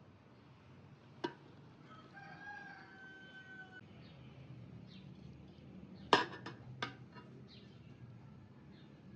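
A rooster crowing once, one long call lasting about a second and a half. A single sharp click comes just over a second in, and a quick cluster of louder sharp knocks or clinks comes about six seconds in.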